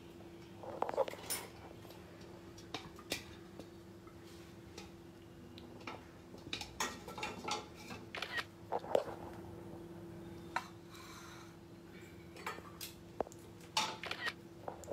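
Scattered light clinks and knocks of crockery and utensils being handled, over a faint steady hum.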